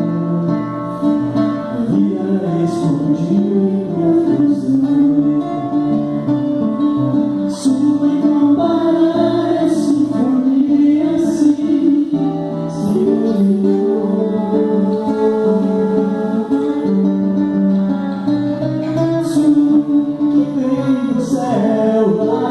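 Live performance of a Portuguese-language worship song: voices singing a melody over acoustic guitar accompaniment.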